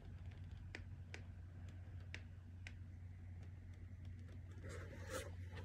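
Faint scattered light clicks and a short rustling scrape about five seconds in, over a steady low hum.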